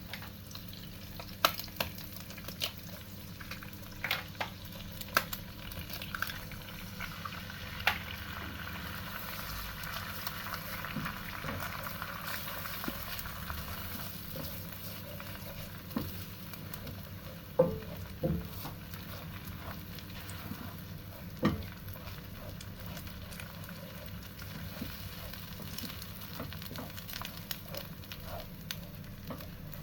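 Food sizzling as it fries in a pan and is stirred, with a utensil knocking against the pan every few seconds.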